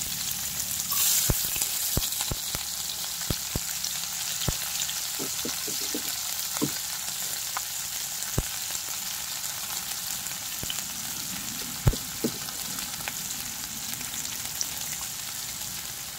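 Chopped onion frying in hot oil with cumin in a pan, a steady sizzle that briefly surges louder about a second in. A spoon clicks and knocks against the pan now and then as it is stirred.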